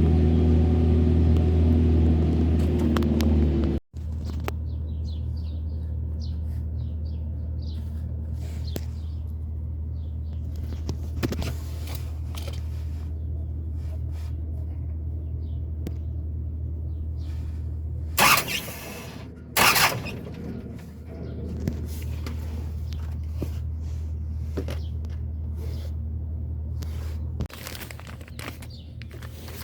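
Isuzu NPR truck engine idling with a steady low rumble. It breaks off abruptly about four seconds in, then carries on a little quieter. Two loud bursts of noise come past the middle.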